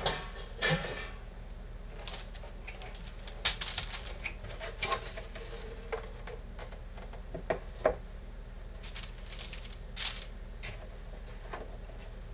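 Scattered clicks and light knocks of a plastic boilie rolling table being handled, its top section lifted and set down over the dough sausages on the ridged base, with a little wax paper crinkling near the start.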